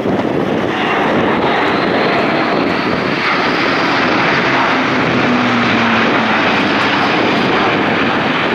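Airbus A400M Atlas's four TP400 turboprop engines and eight-bladed propellers running loud and steady as the airlifter passes close overhead in a steep bank, the sound swelling toward the middle of the pass.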